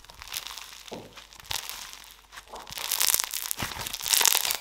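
Crunchy slime packed with small foam beads being stretched and squeezed by hand, crackling and crunching; the crackling grows louder about halfway through.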